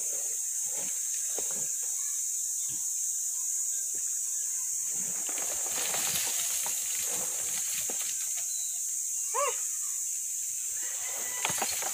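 Steady high-pitched outdoor hiss with scattered light knocks and rustling, and one short animal call about nine and a half seconds in.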